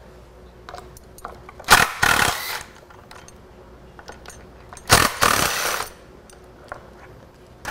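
Cordless drill/driver running a socket on the ignition coil's mounting screws in a motorcycle battery box: two short runs, each a little under a second, about three seconds apart, with light clicks of metal parts between them.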